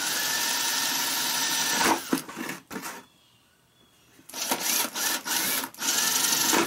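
Cordless drill boring holes through the wall of a soft plastic bucket: one steady run of about two seconds, a few sharp clicks, a short pause, then a series of short bursts as the drill is pulsed through the next hole.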